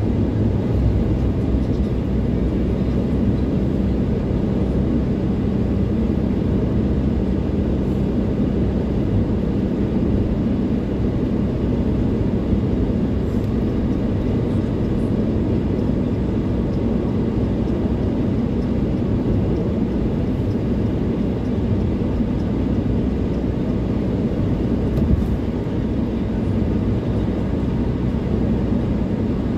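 Steady low drone of a car driving at highway speed, heard inside the cabin: engine and tyre road noise at an even level.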